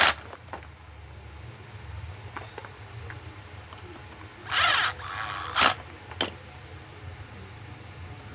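Power drill or driver running in short bursts as it drives in the box fan's base screws: a burst right at the start, a half-second run about four and a half seconds in, a brief one about a second later, then a click.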